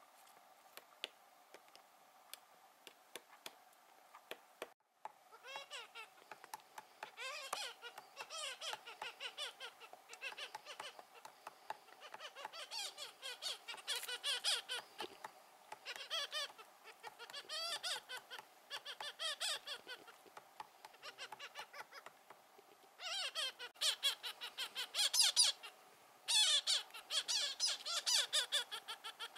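Magellanic woodpeckers calling: bursts of rapid calls, each about a second long, repeating every second or two and loudest near the end. Before the calls start, a few faint taps.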